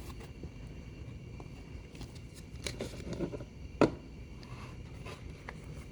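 Light handling noises from unpacking a product box: a few scattered soft clicks and a brief faint rustle of paper, with one sharper tap about four seconds in.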